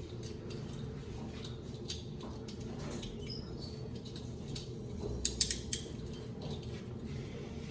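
Steady low room hum with scattered small clicks and creaks; a quick cluster of sharp clicks a little past halfway is the loudest.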